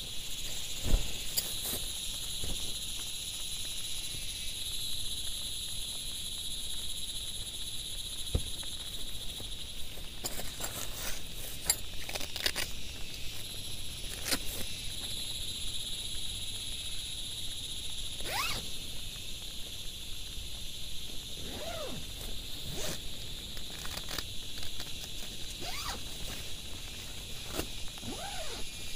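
A steady high-pitched insect chorus trills throughout. Over it come scattered clicks, rustles and a few short zip-like sweeps as a nylon dome tent is handled at its corners and door.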